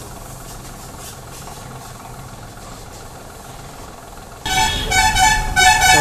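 Vehicle horns honking in repeated loud blasts, starting suddenly about four and a half seconds in, over a low steady background hum.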